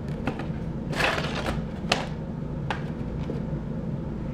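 Empty cardboard box being pawed and shoved about on a wooden floor by a cat pushing its head inside: a handful of light knocks and scuffs, the loudest about a second in, over a low steady hum.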